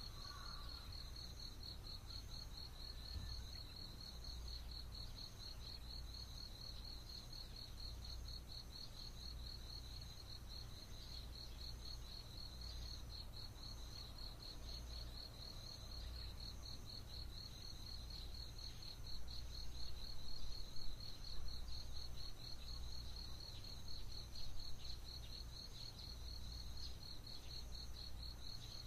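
Dawn insect chorus: one insect trills steadily in fast, even pulses at a high pitch, while a second, higher chirp repeats about once a second. Under it runs a low rumble that swells for a few seconds in the second half.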